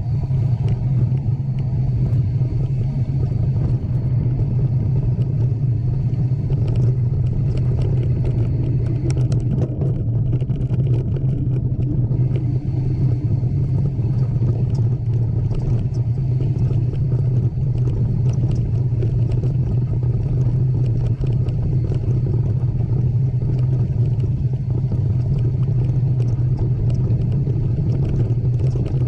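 A steady low drone, like a running vehicle heard from close by, with faint scattered ticks over it.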